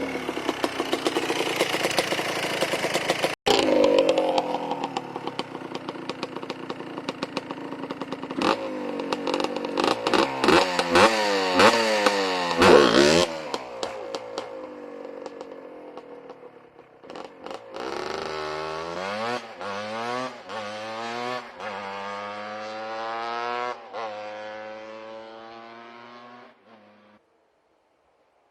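Yamaha Blaster ATV's 200cc two-stroke single revving hard and falling again and again as it is ridden for a wheelie attempt, its pitch dropping sharply about 13 seconds in. After that it climbs through a series of rising revs, each one fainter as it moves away, and cuts off near the end.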